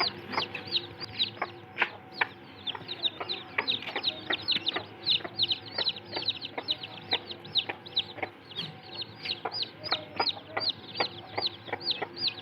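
Chickens, dominated by many chicks peeping nonstop in a dense run of short, high, falling cheeps, several a second and overlapping.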